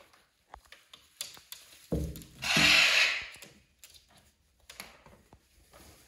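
Parrots moving about on a windowsill and hanging toy: scattered light taps and knocks, with one loud, harsh noisy burst lasting about a second, about two seconds in.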